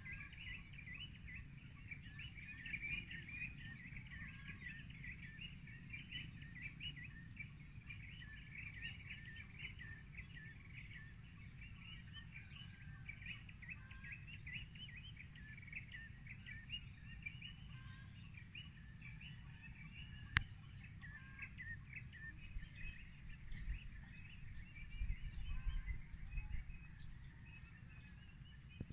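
Many birds chirping and calling together, a dense run of short high notes, over a low rumbling noise that grows heavier near the end. A single sharp click about two-thirds of the way through.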